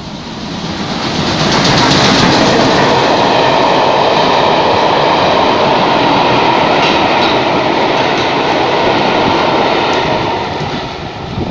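GWR Collett 'Hall' class steam locomotive No. 4965 and its train of coaches running through a station at speed. The rush and rumble swell over the first second or so, hold steady while the coaches pass, and fade near the end.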